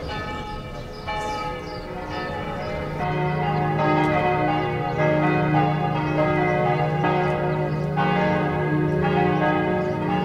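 Church bells ringing, several bells struck in turn about once a second, each strike ringing on into the next; the ringing grows louder about three seconds in.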